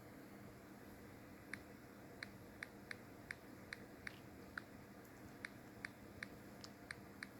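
Faint sharp clicks, irregular and about two a second, starting about a second and a half in, over a low steady hum.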